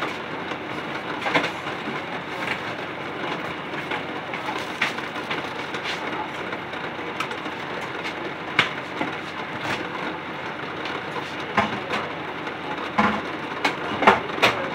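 A pot of eggs boiling hard on the stove, a steady bubbling hiss with scattered clicks and knocks; the water is rising toward boiling over.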